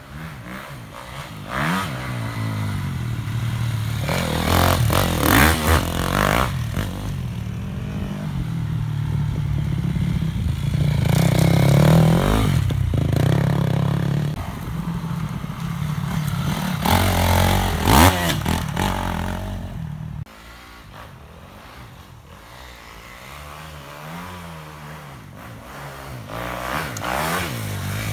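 Dirt bike engines running and revving, the pitch rising and falling with repeated throttle blips. The engines are loudest around 5, 12 and 18 seconds in and quieter after about 20 seconds.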